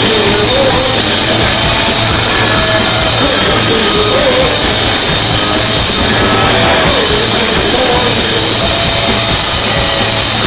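Loud rock music: a band playing with guitar and a melody line, continuous and steady in level.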